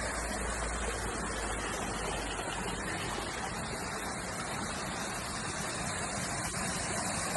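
Waterfall and river water rushing with a steady babbling sound.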